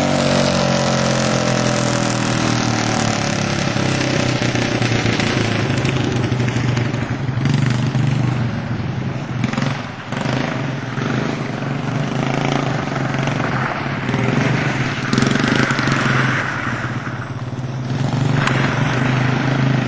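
Go-kart's Honda GX200 single-cylinder four-stroke engine running. Its speed drops right at the start, then holds fairly steady with small rises and falls.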